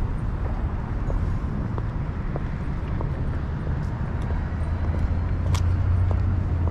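City street ambience: a steady low rumble of traffic, swelling a little near the end, with a few faint ticks.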